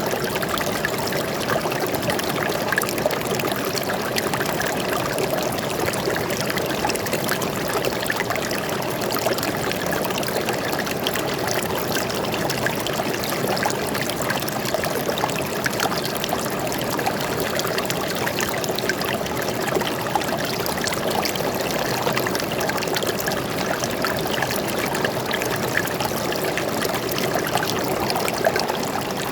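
Stream water flowing and trickling steadily over rocks, an even splashing babble with no pauses.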